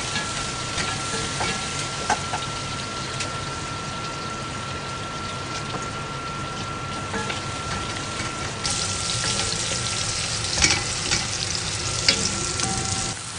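Chickpeas sizzling as they fry in a pan, stirred with a utensil that clicks and scrapes against the pan. The sizzle grows louder about nine seconds in, and a faint steady high tone runs underneath.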